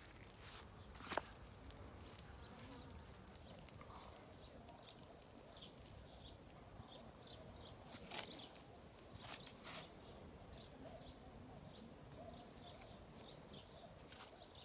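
Faint footsteps and rustling on garden soil and grass, a few louder steps about a second in and again near the middle, with short high chirps repeating irregularly in the background.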